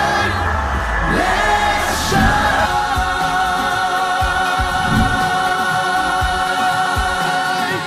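Background music: an uplifting pop song with choir-like singing over held chords, the chord changing about three seconds in.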